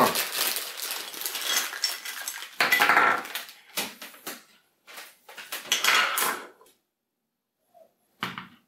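Clear plastic bag crinkling as small hard-plastic display-stand parts are unwrapped, then the plastic pieces clattering and knocking on a tabletop in a few bursts, with one sharp knock near the end.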